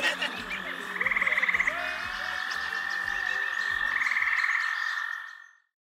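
Night chorus of calling animals: a steady high trill with a short, rapidly pulsed call about a second in and another about four seconds in. It fades out near the end.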